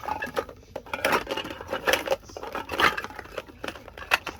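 Groceries being handled and packed into a mini fridge: irregular rustling and crinkling of packaging with light knocks and clatters.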